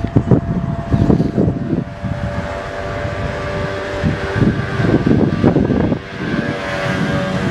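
Wind buffeting the microphone in loud, uneven gusts, with a faint steady hum underneath.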